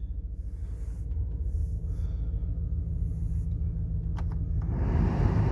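HSV VT Clubsport's V8 idling with a steady low hum. About four seconds in there is a sharp click, and just after it a louder, steady rushing noise comes in over the idle.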